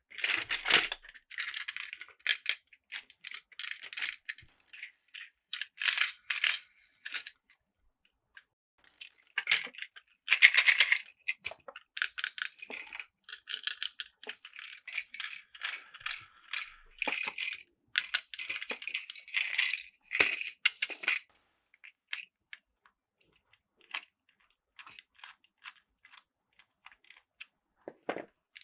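Plastic toy train cars clicking and clattering as they are handled and coupled together, in irregular bursts of short rattles with pauses between them.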